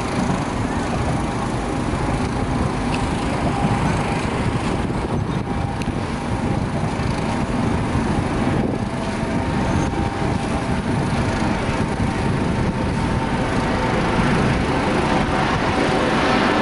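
A steady engine drone with a faint steady whine, over the rush of a fire hose stream spraying onto a burning boat.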